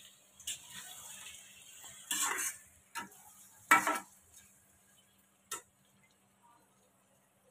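Slotted plastic turner stirring and scraping paneer cubes, onion and capsicum around a frying pan, with a few knocks against the pan; the loudest knock comes about four seconds in, and the stirring then goes quiet apart from one small click.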